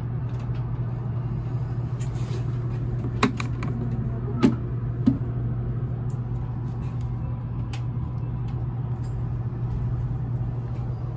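Steady low hum and noise inside a Meitetsu 1000 series passenger car, with a few light clicks and knocks between about three and five seconds in.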